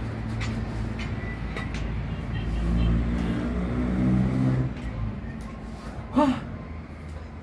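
A motor vehicle's engine rumbling, swelling about three to four seconds in and then fading away. A short, loud cry sounds about six seconds in.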